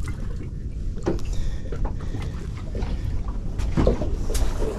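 Steady low rumble of wind and sea with scattered knocks and clatter as a freshly caught tiger flathead and its rig are handled against the boat.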